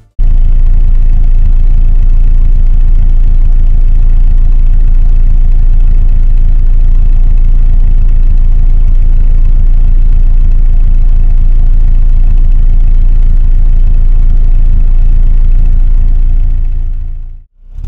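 The stock B6-ZE 1.6-litre DOHC 16-valve inline-four of a 1990 Eunos Roadster idling steadily, heard close at the open engine bay. The sound cuts off shortly before the end.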